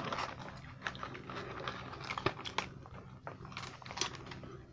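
Close-up chewing of a macadamia-nut chocolate, with small crunches and mouth clicks coming irregularly.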